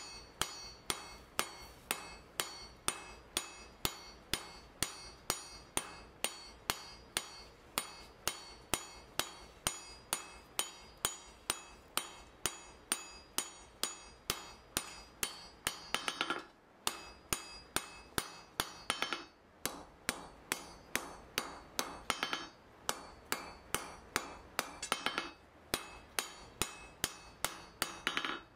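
Hand hammer forging a red-hot mild steel bar on an anvil: sharp, even blows about two to three a second. About halfway in, the blows come in short runs with brief pauses between them, and some of them ring out longer.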